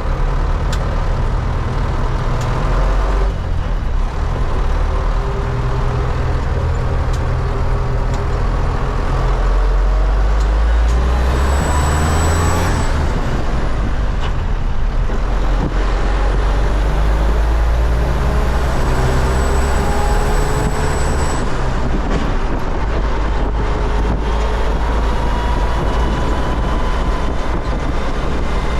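MTZ-80 tractor's 4.7-litre D-243 diesel engine running loud under way, its pitch climbing several times as it accelerates through the gears.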